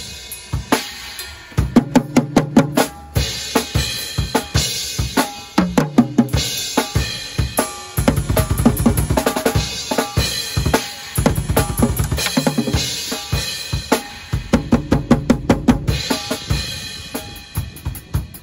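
Acoustic drum kit played live: bass drum, snare and toms struck in quick runs of strokes, with cymbals crashing several times.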